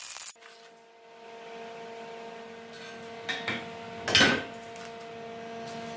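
MIG welding arc hissing and crackling, cut off abruptly about a third of a second in. It gives way to a steady hum with a few fixed tones, with short knocks as the welding torch is handled, the loudest about four seconds in.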